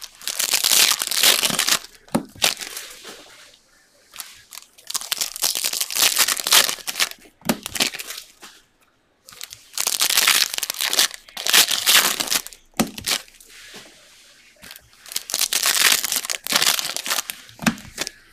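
Trading card pack wrappers being torn open and crinkled by hand. There are four spells of loud crackling and tearing, with short lulls between.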